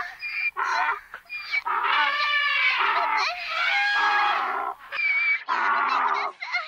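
Cartoon soundtrack: a quick series of short, high-pitched vocal calls, with a dense stretch of overlapping cries in the middle, stopping abruptly shortly before the end.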